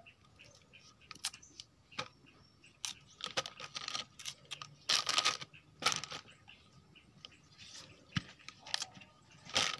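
Thin plastic bag lining a cooking pot crinkling and rustling in irregular bursts as green bananas are packed into it, with light knocks among them. The loudest rustle comes about halfway through.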